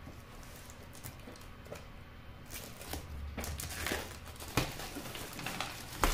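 Clear plastic shrink-wrap crinkling as it is peeled and pulled off a cardboard box, the crinkling getting busier about halfway through, with a couple of sharp knocks near the end.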